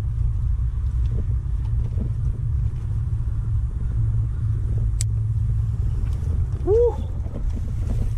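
Wind buffeting the microphone: a steady low rumble. A sharp click comes about five seconds in, and a short rising-then-falling pitched sound comes near the end.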